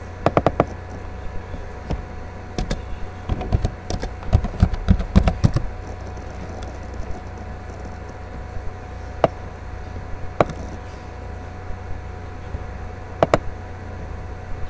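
Scattered sharp clicks and taps over a steady low hum, with a quick flurry of them about four seconds in and a few single clicks later.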